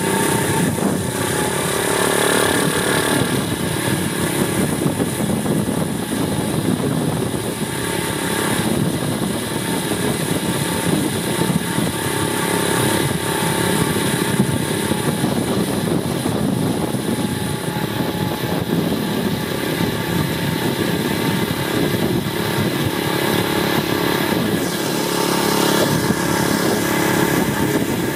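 Apollo 125cc pit bike's single-cylinder four-stroke engine running as the bike rides along, its pitch shifting a little near the start and again near the end.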